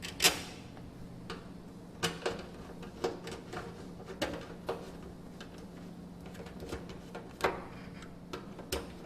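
Scattered sharp metallic clicks and taps of a screwdriver and screws on a washing machine's sheet-metal panel as it is screwed back together, the loudest just after the start, over a steady low hum.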